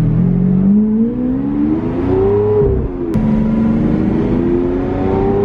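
Lamborghini Aventador's 6.5-litre V12 accelerating hard: the engine note climbs, drops abruptly about three seconds in with a sharp crack as the single-clutch gearbox shifts up with a brief cut in power, then climbs again.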